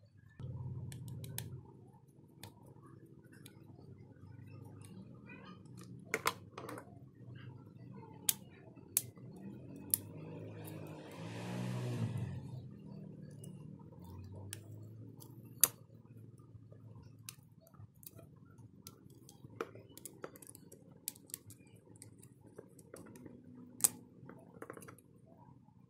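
Small plastic and metal parts of a smartphone being handled and pried apart with steel tweezers: scattered sharp clicks and taps, a few of them much louder, with a brief rustle about halfway through, over a low hum.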